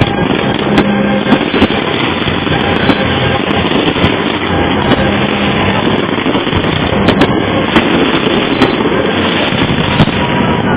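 Fireworks display going off in a dense, continuous barrage: a steady din of bursts with many sharp cracks all through it.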